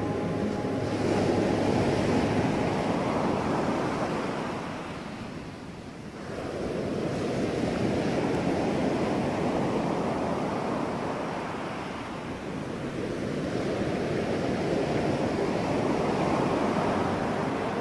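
Ocean surf: waves washing onto the beach in slow swells that rise and fall about every seven seconds.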